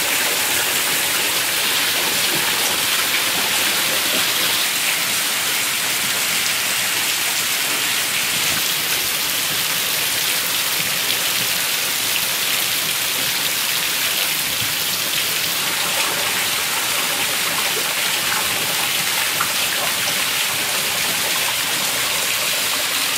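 Steady, fairly heavy rain falling, with runoff pouring from a roof spout and splashing below.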